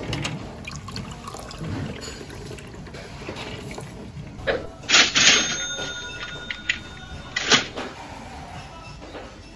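Water poured from a plastic pitcher into a drinking glass: a loud rushing splash for about a second, about five seconds in, with a faint ringing tone held under it, then a second short splash about two and a half seconds later.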